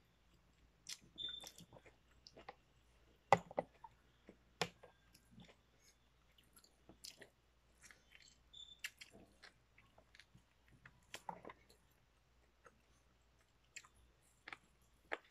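Close-up chewing and biting of bulalo beef with wet mouth sounds, broken by occasional sharp clicks of a metal fork and spoon, the loudest about three seconds in.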